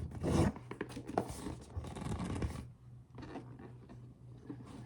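Cardboard figure box being handled and opened: scraping and rustling of cardboard with a few small clicks, busiest for the first two and a half seconds and then quieter, scattered handling.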